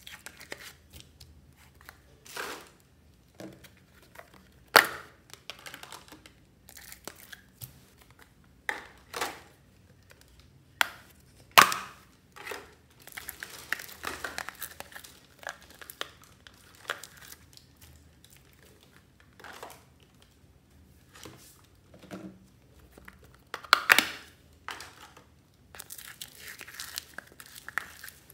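Clear plastic slime tubs being flexed and squeezed while foam-bead slime is worked out of them, giving irregular sharp plastic clicks and stretches of crinkly crackling from the foam beads.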